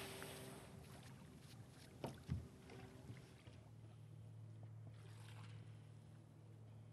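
Quiet sounds of a small fishing rowboat being launched and worked with an oar: faint water noise at first, two light knocks about two seconds in, then a low steady hum from about halfway.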